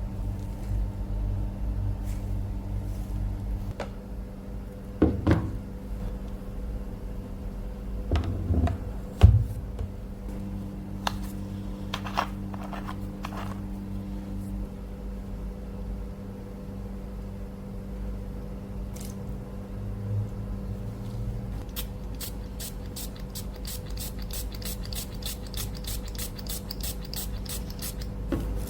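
Workshop work sounds over a steady low machine hum: a few sharp knocks near the start, then light, even rubbing strokes at about four a second, building up in the last several seconds.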